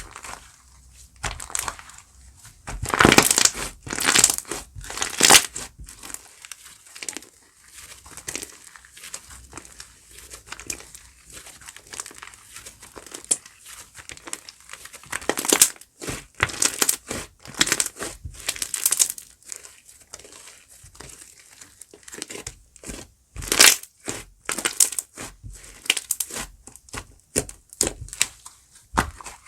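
Slime being squished and pressed by hand, giving irregular runs of sticky crackling clicks, loudest in clusters about three to five seconds in and again around the middle.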